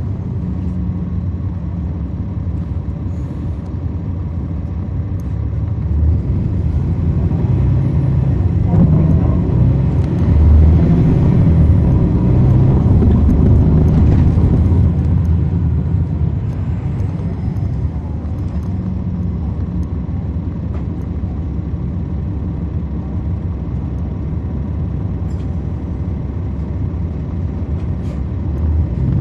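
Cummins ISL9 inline-six diesel engine of a 2010 NABI 40-SFW transit bus, heard from the back of the bus cabin while it drives. The engine grows louder about six seconds in and eases back after about ten seconds.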